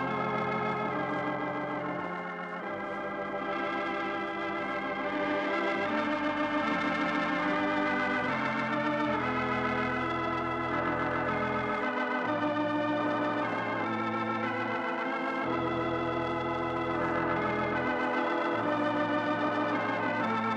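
Organ playing the programme's closing theme: sustained chords with a wavering tremolo, moving to a new chord every second or two.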